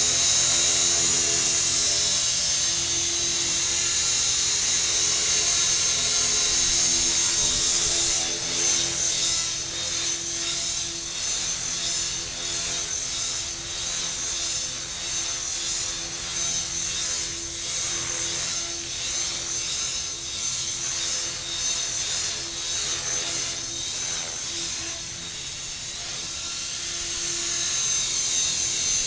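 Tarot 450 Pro electric RC helicopter hovering: a steady high-pitched whine from the electric motor with the whir of the rotor blades. The level wavers as the helicopter moves about, and the sound drops a little after about eight seconds.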